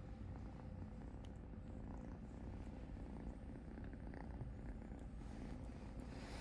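Black kitten purring steadily while being groomed by an adult cat, a continuous low, fluttering rumble.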